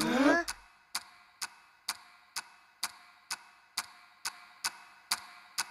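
Steady ticking of a cartoon time bomb's clock timer, one sharp tick about twice a second. In the first half-second a short rising cry is the loudest sound.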